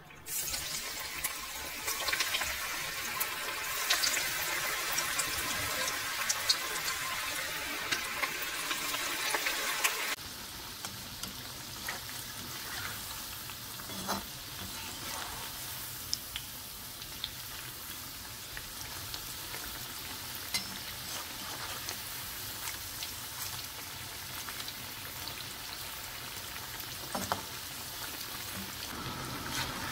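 Dill-leaf and onion pakora batter deep-frying in hot oil in a kadai: a steady sizzle that starts as the batter goes in and drops to a softer sizzle about ten seconds in. A few light knocks come from the slotted metal spoon turning the fritters.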